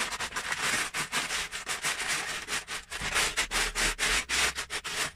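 Loose Lego bricks clattering and rattling as hands rummage through a plastic storage tub full of them: a dense, continuous run of small plastic clicks.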